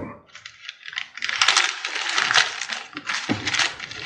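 Paper rustling and crinkling in several bursts as an envelope is taken out and handled, starting about a second in.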